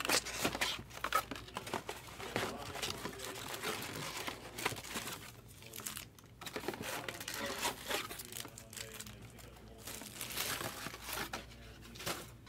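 Plastic trading-card pack wrappers crinkling and rustling as the packs are handled and laid out on a table, with small clicks and taps among them and brief pauses about halfway and near the end.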